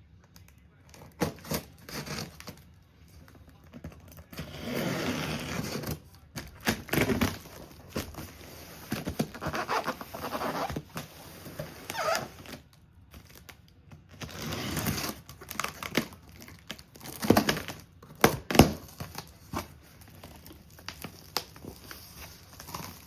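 A cardboard shipping box being torn open and unpacked: several stretches of cardboard and packing material tearing and crinkling, broken by sharp knocks and scrapes as the contents are handled.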